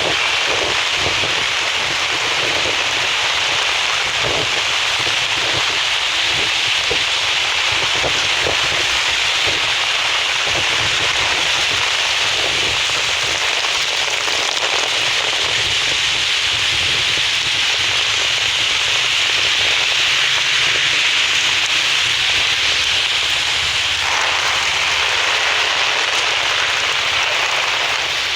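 Steady rain falling, a constant hiss and patter.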